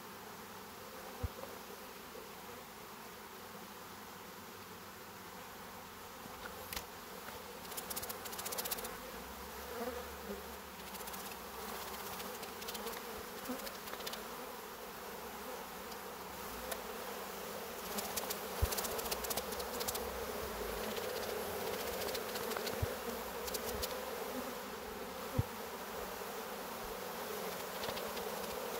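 Honeybee colony humming from an opened hive, a steady drone that grows louder about a third of the way in as a comb frame is lifted out. A few light knocks stand out against the hum.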